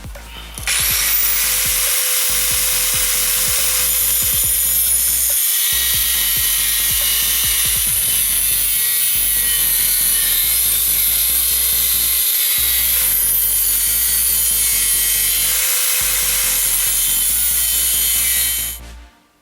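A power tool cutting or grinding steel: it starts abruptly about a second in, runs loud and steady, and stops shortly before the end. Background electronic music plays underneath.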